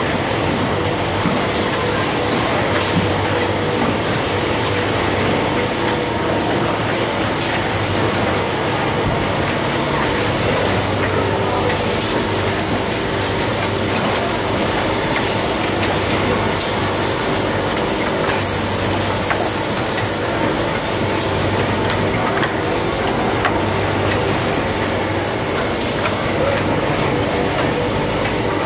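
Automatic ice cream filling and packing machine running, with a steady mechanical hum and short hisses of compressed air from its pneumatic cylinders every few seconds as it cycles.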